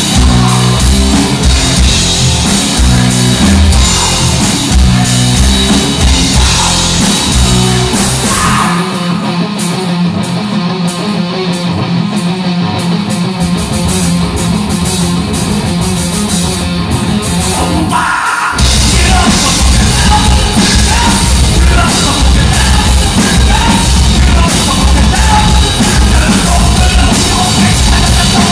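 Hard rock band playing live, with distorted electric guitars, bass and drum kit. About nine seconds in the band drops to a thinner breakdown without the low end. The bass comes back a few seconds later, and the full band crashes back in about halfway through.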